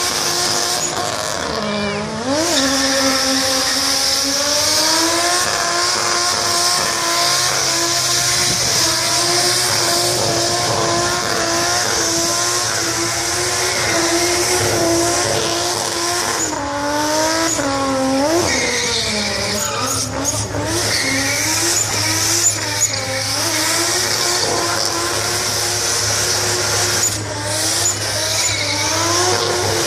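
Nissan R32 Skyline doing a burnout: the engine is held at high revs while the rear tyres spin and screech. Twice, about two seconds in and again just past halfway, the revs drop briefly and climb back.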